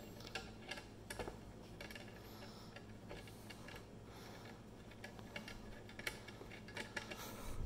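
Faint, scattered light ticks and clicks of a rubber-duck antenna being screwed by hand onto the threaded gold SMA connector of a Hak5 WiFi Pineapple Mark VII, with a few more clicks near the end.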